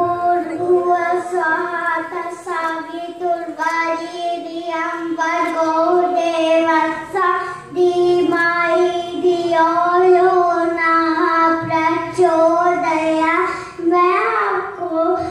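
A young boy singing solo into a microphone, holding long, steady notes with short breaks between phrases.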